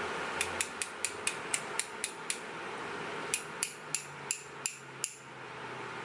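Sharp, ringing metallic taps on a small padlock while pins are being removed: a quick run of about eight taps at roughly four a second, then five more spaced more widely. They fit knocking the lock to free a pin spring stuck in its chamber.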